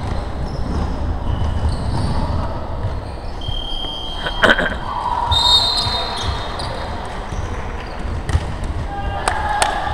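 Basketball game on a wooden indoor court: the ball bouncing and knocking, a few short high squeaks, and players' voices in an echoing sports hall.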